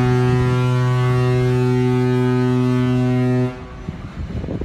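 Ship's horn sounding one long, deep, steady blast that cuts off after about three and a half seconds.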